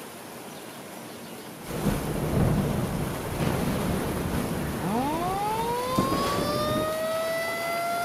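Steady rain hiss with a heavy rumble of thunder starting about two seconds in. Halfway through, an outdoor civil-defense warning siren starts up, its wail rising in pitch and levelling off into a steady tone, with a sharp crack of thunder about a second after it starts.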